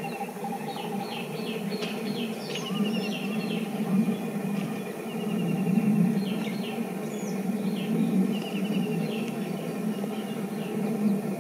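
Birds chirping and giving quick repeated trills over the low, steady rumble of a passenger train running away into the distance.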